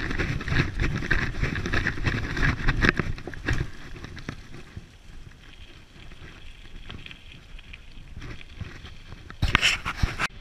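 Dog scooter rolling and rattling over a bumpy dirt track, its wheels and frame giving a rough rumble full of small knocks, with wind on the microphone. It quietens after about four seconds, and a short loud rush comes near the end.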